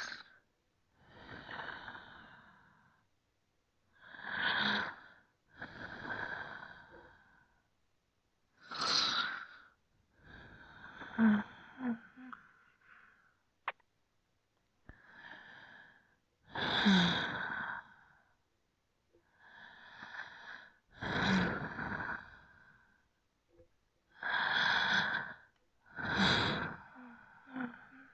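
A person breathing slowly and deeply, inhales and exhales in turn, each breath a second or two long with short silent gaps between. A few breaths carry a slight throaty tone.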